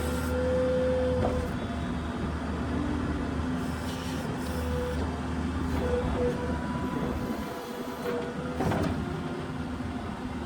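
New Holland skid steer's diesel engine running steadily, with a whining tone that comes and goes and a single clank near the end.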